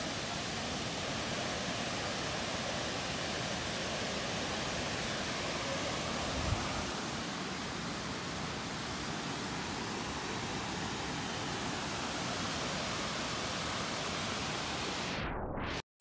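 Steady rushing of a waterfall cascading down rock, with one brief low thump about six and a half seconds in and a short drop to silence just before the end.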